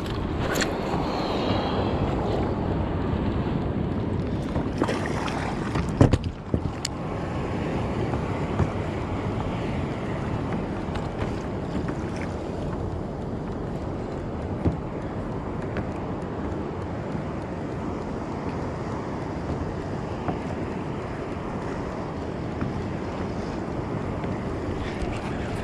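Wind buffeting the microphone over water sloshing against a kayak on the open ocean, with a few sharp knocks, the loudest about six seconds in.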